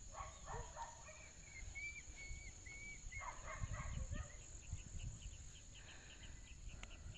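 Faint countryside ambience: a steady high-pitched insect drone, runs of short repeated chirps, and wind rumbling on the microphone.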